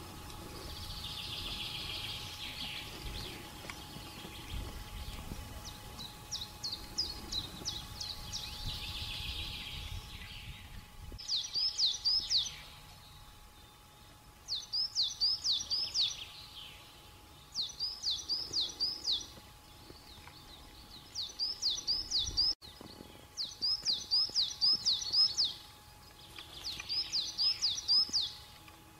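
A small songbird singing the same short phrase of rapid, high chirps over and over, about one phrase every three seconds. For the first third, before the song settles in, a hiss and a low rumble lie underneath.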